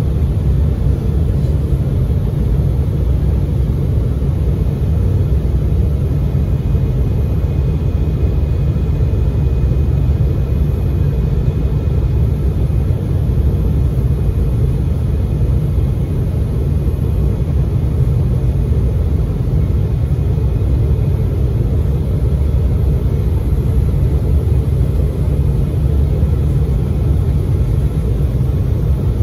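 Steady low rumble inside the passenger cabin of an Embraer 175 airliner on final approach: the noise of its twin turbofan engines and the airflow over the fuselage, unchanging throughout.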